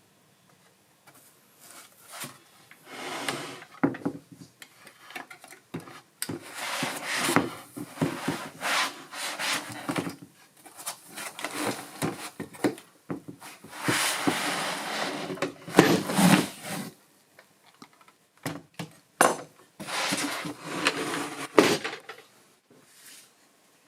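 Hands unpacking and handling packaging and parts: irregular rubbing and scraping with knocks and clinks, busiest in the middle and thinning out near the end.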